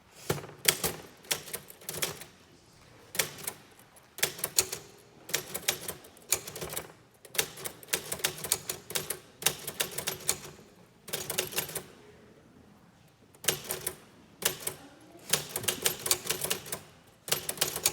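Typewriter keys being struck one after another, each a sharp clack, in short irregular runs with a few pauses of about a second between them.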